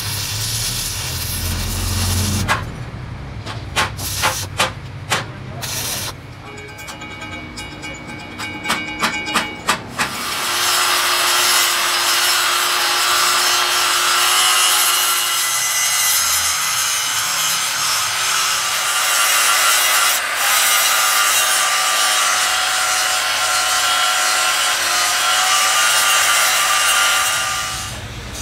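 A welding arc crackling and hissing, then a run of sharp knocks. From about ten seconds in, an angle grinder runs steadily with a whine as it grinds down the weld built up on a large gear's rebuilt teeth.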